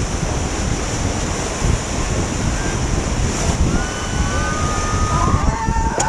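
Whitewater rapids rushing and churning around an inflatable raft, a loud steady roar of water, with wind buffeting the microphone.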